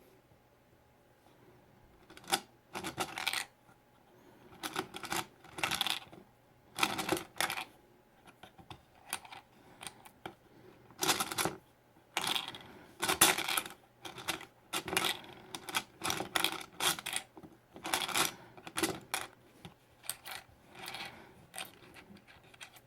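Small plastic toys and their packaging being handled: an irregular run of clicks, taps and brief crinkling rustles, starting about two seconds in.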